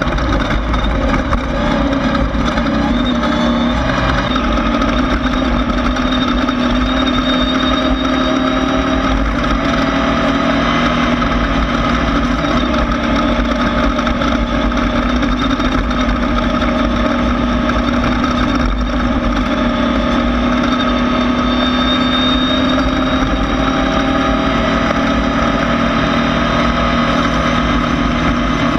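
Air-cooled Volkswagen 1600 engine of a 1600-class off-road race car running steadily at a nearly even pitch, heard on board over a constant rushing noise.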